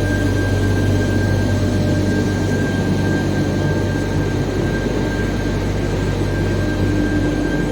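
Steady drone of industrial furnace equipment running: a strong low hum with a thin, steady high whine above it.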